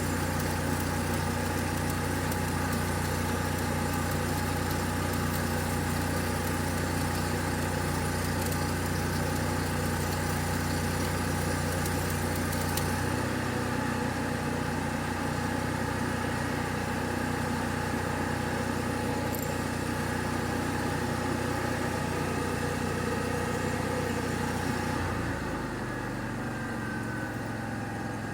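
An engine running steadily, with a hiss on top. About 25 seconds in, the hiss thins out and the engine settles to a lower note.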